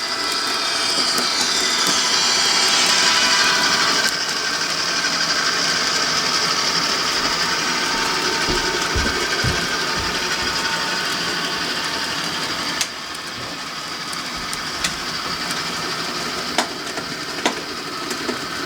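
Model train running past on the layout: the steady mechanical whirr of its motor and wheels on the track. It drops suddenly in level about 13 seconds in, with a few soft thumps shortly before and light clicks near the end.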